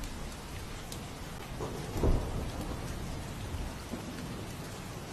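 Steady rushing noise of heavy rain and surging floodwater, with one louder low boom about two seconds in.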